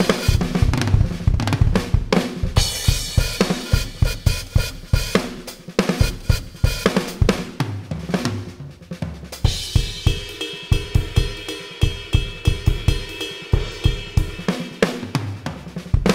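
EZdrummer 2 software drum kit triggered from the pads of a Roland electronic drum kit, playing a steady groove of kick, snare, hi-hat and cymbals, with cymbals ringing out more from about ten seconds in.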